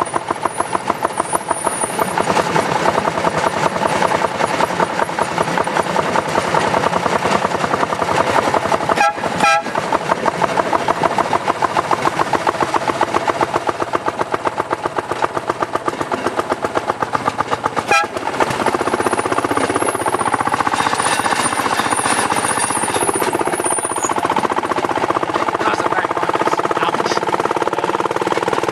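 Railway section car (speeder) running along the track: a small engine's fast, pulsing beat with steel wheels on rail. About two-thirds of the way in it turns to a steadier, even note.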